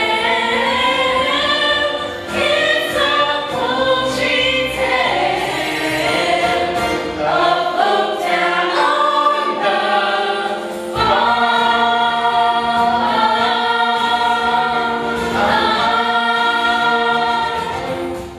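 Cast of a stage musical singing a number together as a choir, the voices holding long notes in the later part.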